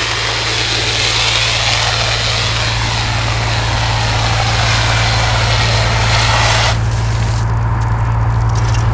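Fire hose nozzle spraying a stream of foam solution with a steady loud hiss, over the steady low drone of an engine running. The spray hiss drops back sharply about seven seconds in.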